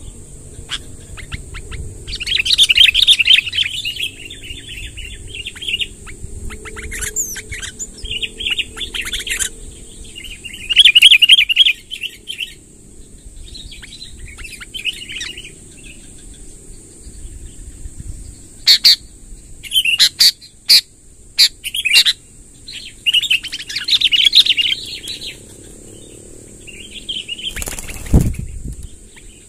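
Sooty-headed bulbuls (kutilang) singing and chattering in repeated bursts of song. Several sharp clicks come near the middle and one loud knock near the end, over a steady high-pitched whine.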